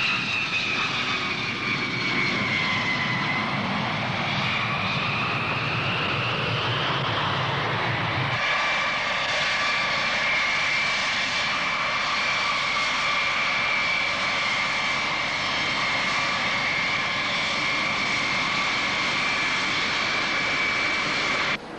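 Airplane engines whining loudly. For the first eight seconds the pitch falls and then rises again over a low rumble. After an abrupt change the rumble drops away and a steady high whine holds until it cuts off suddenly near the end.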